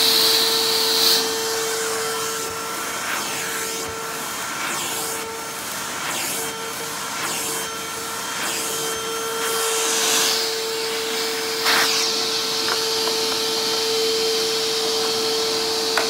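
Eureka Boss Smart Vac 4870 upright vacuum running steadily with a constant motor whine, drawing suction through its hose. A hose tool is rubbed over the carpet, giving short scrubbing surges of noise at irregular moments.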